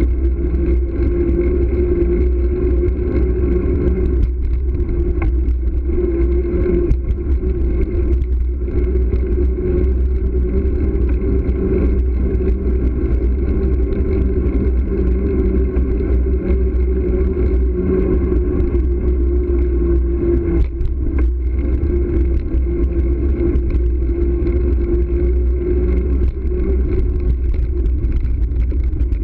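Riding noise from a bicycle-mounted camera rolling along a paved street: a steady low rumble with a constant hum over it.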